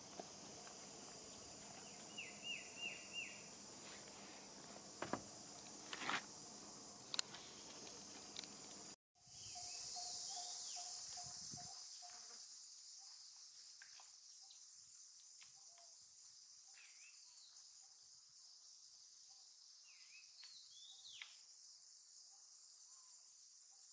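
Faint, steady high-pitched shrilling of insects outdoors. A quick run of four short falling chirps and a few light clicks come early on; about nine seconds in the sound breaks off for a moment, then returns louder and slowly fades, with scattered small chirps.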